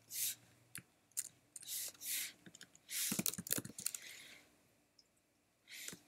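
Computer keyboard keystrokes and clicks, a few at a time with pauses, as text is typed and edited. Several short soft hissing sounds come between them.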